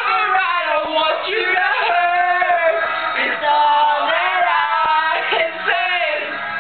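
Singing over music: drawn-out, sliding vocal lines over a rock-ballad backing.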